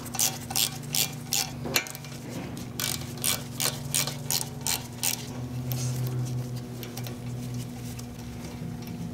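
Socket ratchet clicking in quick, even strokes, about three a second, as a 7 mm Allen socket backs out the front brake caliper bolts; the clicking thins out after about five seconds. A steady low hum runs underneath.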